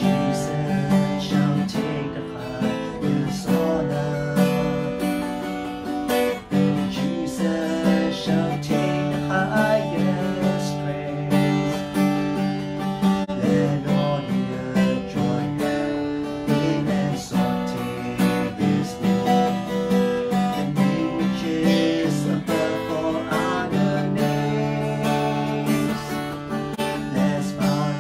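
A man singing a slow worship song while strumming chords on an acoustic guitar.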